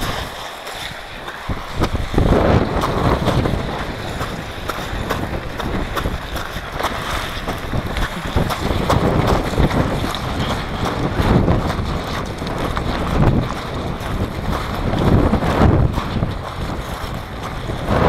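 Wind buffeting a bike-mounted camera's microphone while a mountain bike rides over beach shingle, with the tyres rustling and crunching over the pebbles. The rush is lighter for the first couple of seconds, then comes on stronger in uneven gusts.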